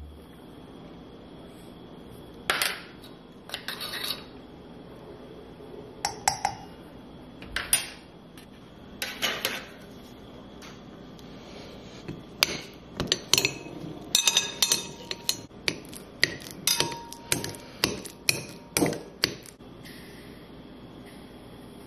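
Kitchen utensils knocking and clinking on dishes: scattered sharp knocks, then a quick run of taps for about seven seconds in the second half, a utensil striking a glass bowl as a banana is mashed in it.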